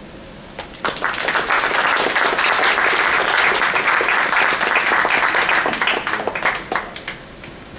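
Small audience applauding. The clapping starts about a second in, holds steady, then thins out to a few scattered claps near the end.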